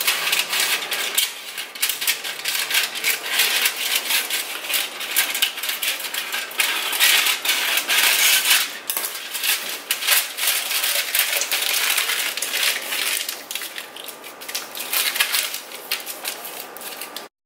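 Aluminum foil crinkling and crackling in quick, irregular clicks as a sheet is cut with kitchen scissors and then scrunched by hand around a potato.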